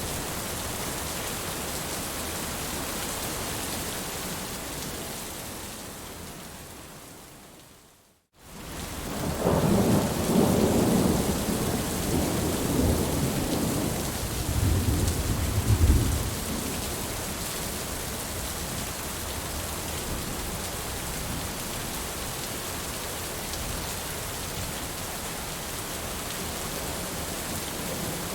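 Steady heavy rain that fades away to a brief silence about eight seconds in, then returns with a long rumble of thunder that rolls for several seconds and is loudest near its end, before the rain carries on steadily.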